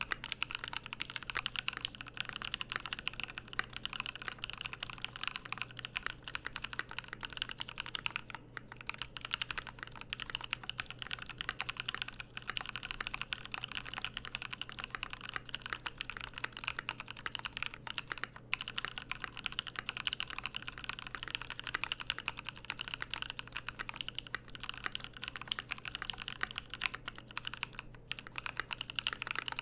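Continuous typing on an Exclusive E8.5 mechanical keyboard with lubed NovelKeys Cream linear switches, PBT keycaps and an aluminium plate: a dense, steady stream of keystrokes bottoming out, broken by a few very short pauses.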